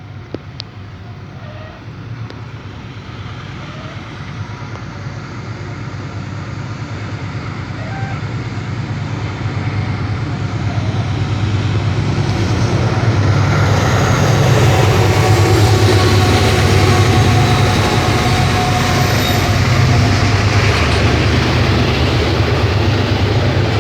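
Train approaching and running past: a steady rail rumble that grows steadily louder over the first dozen seconds or so, then stays loud.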